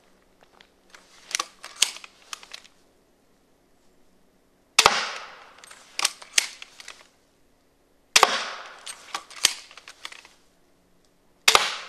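Three shots from a Cobra crossbow pistol fitted with a 10-bolt magazine. Each is a sharp snap of the 80 lb prod and string with a short fading tail, about three and a half seconds apart. Lighter clicks and clacks of the pump action being worked come before and between the shots.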